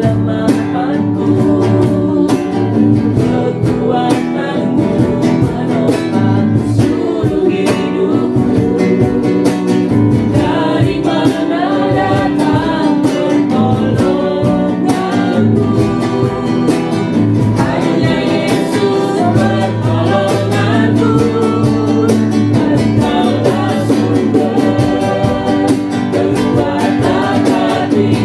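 Gospel worship song with singing over guitar accompaniment.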